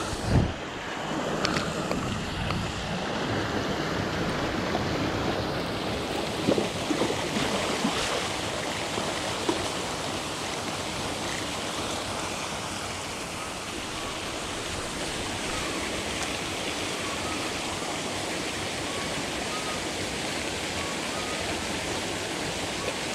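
Pond paddlewheel aerator churning and splashing the water, a steady rushing. A short knock comes about half a second in, and a few lighter clicks follow a few seconds later.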